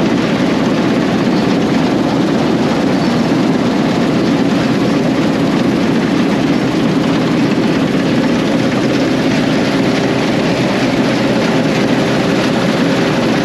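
John Deere combine harvester running steadily under load while harvesting wheat: an even, dense machine drone with a few faint steady tones held through it.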